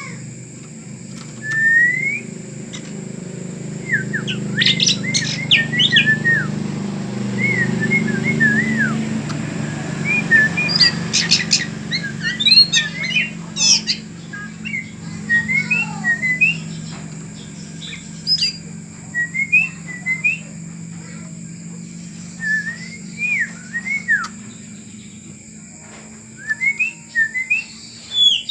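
Oriental magpie-robin (kacer) singing: bursts of varied, clear whistled notes that rise and fall, in phrases repeated every second or two. A low steady hum runs underneath, louder in the first third.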